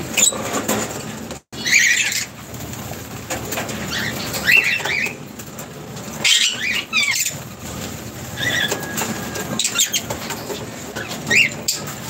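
Masked lovebirds giving short, sharp chirps again and again, with wings flapping as birds fly in and land on a perch.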